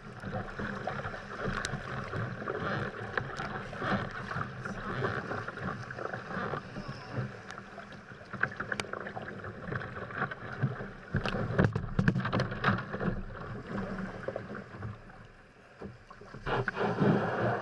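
Water sloshing and lapping against a kayak's hull, with wind buffeting the microphone and scattered small knocks and clicks; a louder rush comes near the end.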